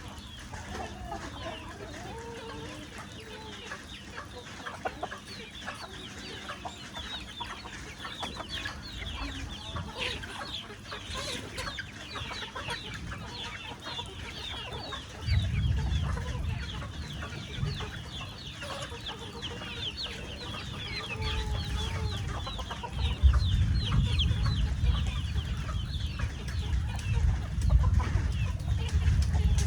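Chickens clucking, with many short high-pitched calls and lower hen clucks running together. A low rumbling noise comes in about halfway and grows louder near the end.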